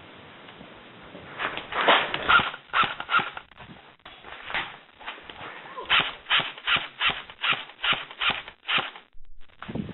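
Footsteps of a person moving quickly, with clothes and gear rustling. An uneven cluster of steps comes about 1.5 to 3 seconds in, then a steady run of footfalls a little over two a second for about three seconds near the end.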